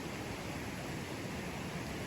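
Mountain river flowing over rocks: a steady, even rushing of water with no change.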